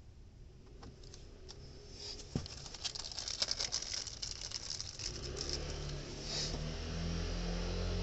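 Plastic wrapping crinkling and rustling as it is pulled off the end of an insulated air-conditioner pipe by hand, in quick crackles, with a low steady rumble setting in about halfway through.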